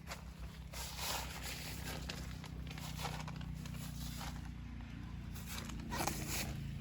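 Irregular rustling and crunching noises, roughly one a second, over a low steady hum.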